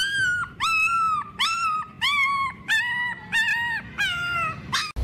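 A puppy whining in a run of short, high-pitched cries, nearly two a second. The cries cut off abruptly near the end.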